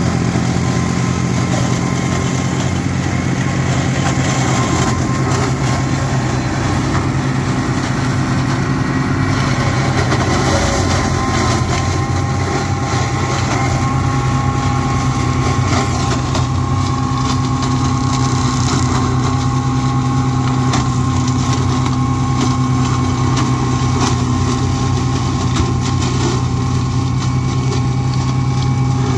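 Same Explorer II 60 Turbo tractor's diesel engine running steadily while it drives a Maschio Giraffe flail mulcher, with a steady whine over the engine note.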